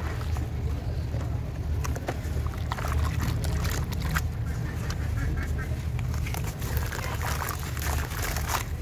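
Hands sloshing and crumbling soaked sand-cement slabs in a tub of water: splashing water with dense crackling and fizzing as the cement breaks apart. A steady low rumble runs underneath.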